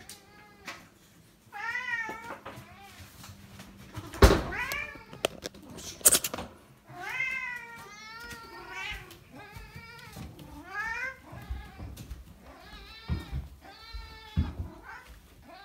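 Kitten meowing over and over in short, high calls while her food bowl is brought to her: begging to be fed. Two sharp knocks land about four and six seconds in.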